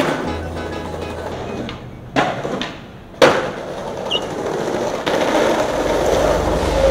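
Skateboard wheels rolling over paving, with sharp clacks of the board striking the ground three times, the loudest about three seconds in.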